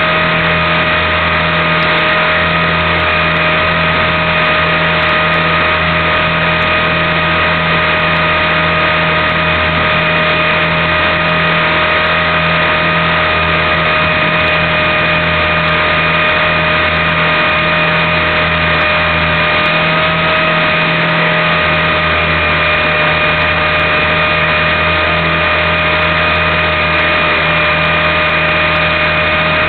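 Align T-Rex 450 Pro electric RC helicopter running: a steady high whine from the electric motor and drive gears over the low buzz of the rotor, holding an even pitch.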